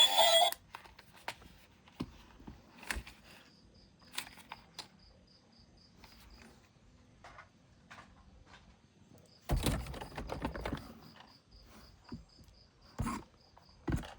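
Scattered light clicks and knocks of objects being handled, with a louder rustling stretch about ten seconds in. A faint high chirp repeats about four to five times a second in two runs.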